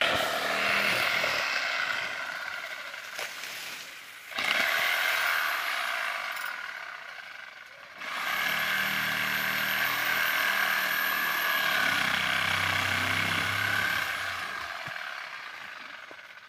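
Small handheld power saw cutting dry date palm wood at the base of the trunk. It runs in three bursts, two short and then a longer steady one of about eight seconds, each starting suddenly and winding down with a fading whine.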